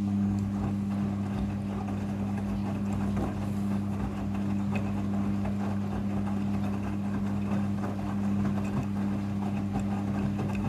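Midea front-loading washing machine running with a steady low electrical hum over a rushing, crackling water noise, which starts and cuts off abruptly.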